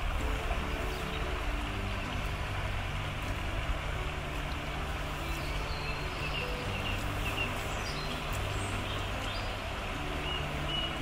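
Steady rush of flowing stream water. Short, high, repeated bird calls come a few seconds in and again near the end.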